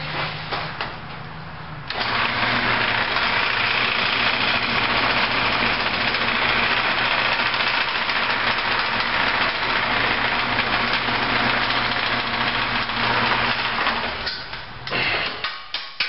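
Wood lathe running while a long drill bit fed from the tailstock bores into the end of a spinning cedar lamp blank. About two seconds in the bit bites and a loud, steady drilling noise sets in over the lathe motor's hum. It breaks up and falls away near the end as the bit is backed out. The bit is running without oil and getting hot.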